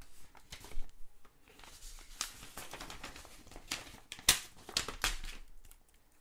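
Paper rustling and crinkling as a letter is unfolded and its contents handled, with scattered sharp snaps and taps from stiff paper and a card pouch; the loudest snap comes about four seconds in.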